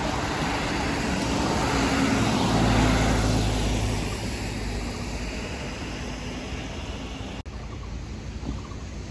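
Road traffic on a wet road: tyre hiss and engine noise, loudest in the first four seconds as a vehicle goes by, then easing to a quieter, steady traffic hum.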